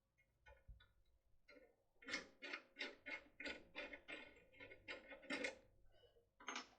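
Light clicks and scrapes of a metal lock cylinder and lockpick being handled, about three a second through the middle stretch, with a few fainter clicks before.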